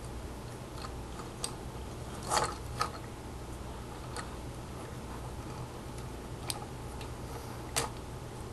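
Plastic joints and parts of a Transformers Human Alliance Leadfoot action figure clicking and snapping as they are moved by hand: a few separate small clicks spread out, with a slightly louder double click about two seconds in and another near the end, over a steady low hum.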